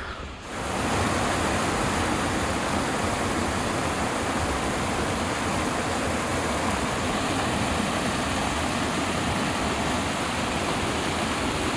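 Waterfall: a steady, even rush of falling water that rises within the first second and then holds level.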